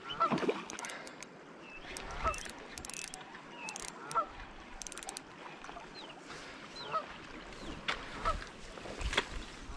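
Waterfowl honking over and over, short calls about once a second, with scattered sharp clicks alongside.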